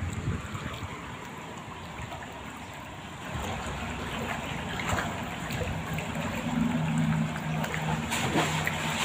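Floodwater flowing and lapping through a flooded concrete underpass tunnel, a steady rush that grows louder about three seconds in.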